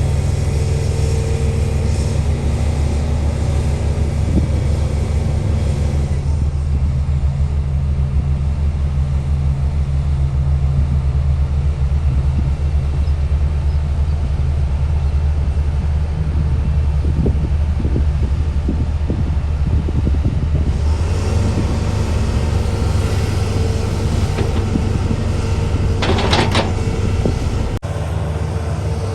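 Heavy machinery engine running steadily with a deep, constant drone, from the excavator or the truck at the dig. Near the end there is a short, sharp noise.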